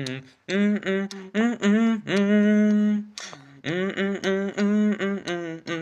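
A man's voice singing a wordless, hummed melody in short notes, with one long held note about two seconds in.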